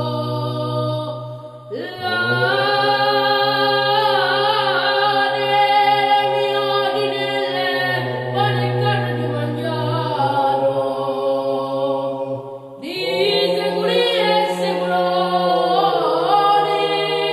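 Unaccompanied vocal chant: voices singing a slow melody over a low held drone note, with short breaks between phrases about 2 seconds and 13 seconds in.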